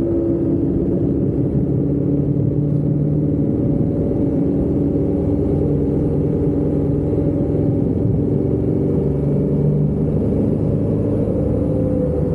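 Road vehicle driving at a steady speed: a continuous engine note with road noise underneath, its pitch drifting only slightly.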